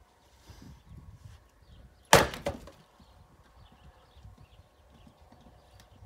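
An axe strikes a log on a chopping block once, about two seconds in, splitting firewood with a sharp crack of wood, followed by a smaller knock.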